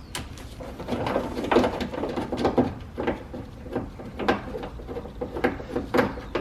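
A hand tool loosening a bolt in a car door, giving a string of irregular sharp clicks and knocks.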